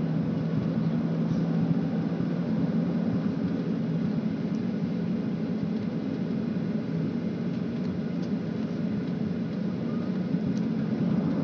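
Steady engine rumble of a jet airliner taxiing, heard inside the cabin.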